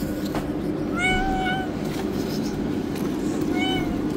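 Tabby cat meowing twice to ask for food: a longer meow about a second in and a shorter one near the end, over a steady low background rumble.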